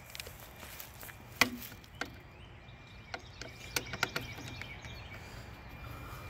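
Hand tools being sorted and handled: a handful of sharp clicks and knocks, the loudest about a second and a half in and several more clustered around four seconds in.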